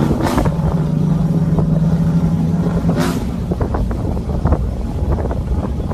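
Vehicle engine running at a steady drone while driving over a rough dirt road, with frequent small knocks and rattles from the bumps. Two brief rushes of noise, near the start and about three seconds in.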